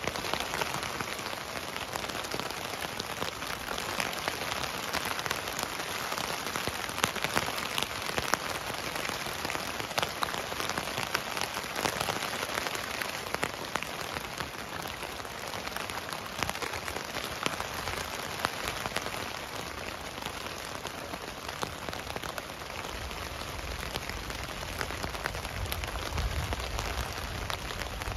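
Steady rain falling on a tent, heard from inside, with many separate drops tapping on the fabric. A low rumble joins in near the end.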